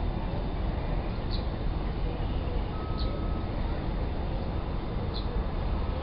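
Steady low rumble of outdoor background noise, with a few faint, short, high bird chirps about a second and a half, three and five seconds in.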